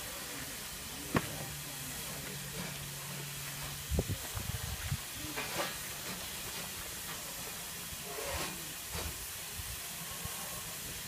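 Steady hiss of steam from a standing Ivatt Class 2MT 2-6-0 steam locomotive, with a sharp click about a second in and a short run of knocks around four to five seconds in.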